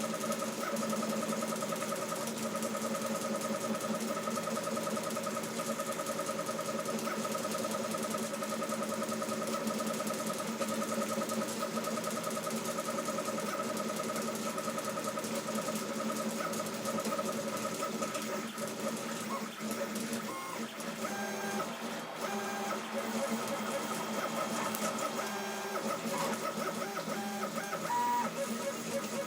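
CoreXY 3D printer's stepper motors running through a test print, a steady whine of several pitches over a hiss. About two-thirds of the way through it breaks into shorter, changing notes as the moves vary.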